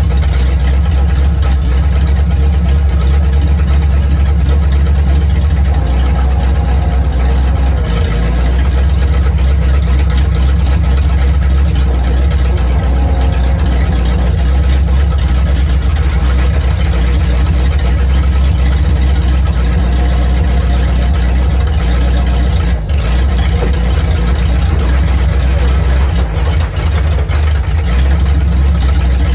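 1950 Ford F6 truck's flathead V8 running steadily while the truck's hydraulic dump bed is raised and lowered. The engine dips briefly a couple of times near the end.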